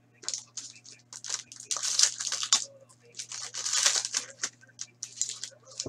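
An Upper Deck Contours hockey card pack's wrapper being torn open and crinkled by hand, in a run of rustling bursts that are loudest about two seconds in and again near four seconds.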